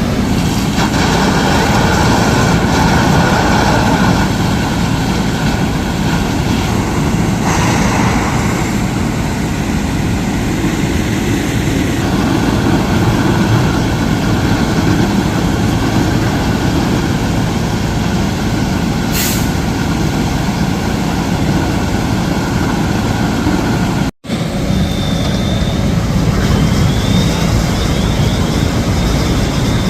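Heavy diesel truck engines running steadily, a low rumble such as fire apparatus make at a fire scene, with a brief hiss about 19 seconds in. The sound cuts out for an instant about 24 seconds in and resumes the same.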